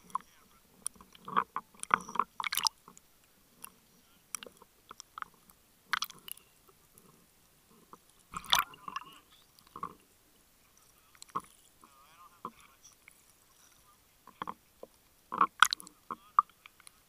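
Water sloshing and splashing around a camera bobbing at the surface, in irregular short bursts with small knocks and clicks between quieter gaps.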